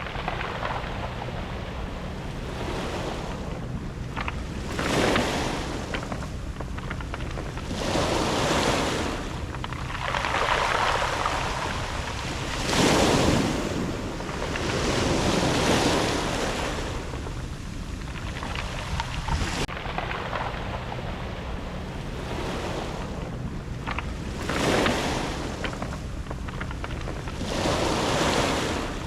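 Sea waves breaking and washing over a round-pebble beach, surging every few seconds.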